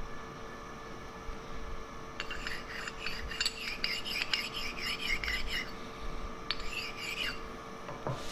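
Precision-ground flat bench stone rubbed back and forth over the steel taper shank of a core drill, dressing down high spots where the shank got dinged. A run of scraping strokes, about three a second, starts about two seconds in, with a shorter run near the end.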